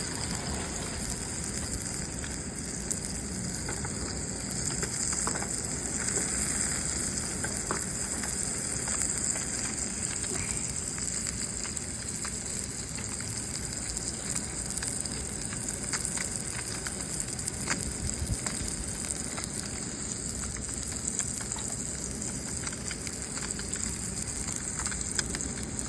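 Fish frying in olive oil on a portable propane grill: a steady sizzle with scattered small pops and crackles, the flame turned up high.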